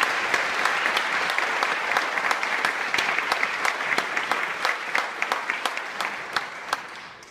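A church congregation applauding steadily, the clapping dying away near the end.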